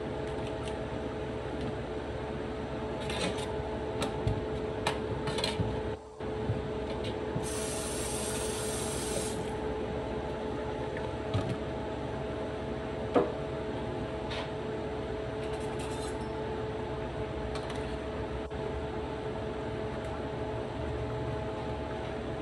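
Steady kitchen hum with a few fixed tones, over which a seasoning jar is shaken and handled over a plate in the first several seconds, giving light clicks and scrapes. There is a short hiss about eight seconds in and a couple of single clicks later.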